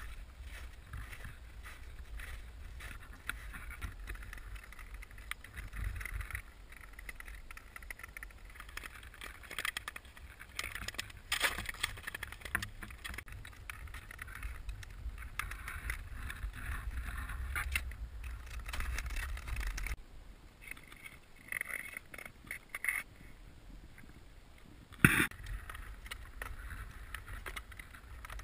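Nordic skates scraping and gliding over natural ice, with wind rumbling on the microphone. The rumble drops away about two-thirds of the way in, and a single sharp knock comes near the end.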